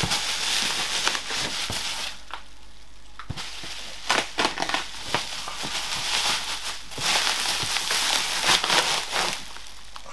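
Bubble wrap being pulled off a cardboard box and crumpled, a dense crinkling and crackling with a short lull about two seconds in.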